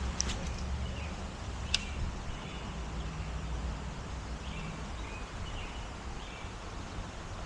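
Outdoor creek-side ambience: a steady low wind rumble on the microphone, two sharp clicks in the first two seconds, and a few faint short bird chirps.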